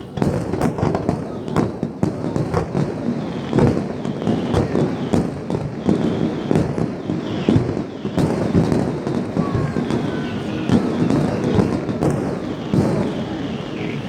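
Aerial fireworks display: many bangs and crackles going off in quick, overlapping succession.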